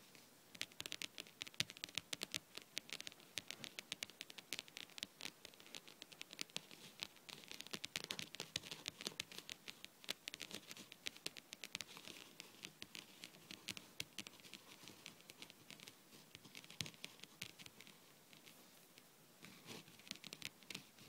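Long painted fingernails tapping rapidly on a table top: a fast, uneven patter of light clicks that starts about half a second in.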